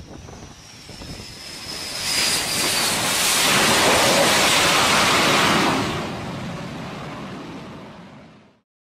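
F/A-18 Hornet jet fighter landing on an aircraft carrier deck: a high engine whine that sinks slowly in pitch, then a loud jet roar from about two seconds in as it passes and touches down. The roar eases off and fades out near the end.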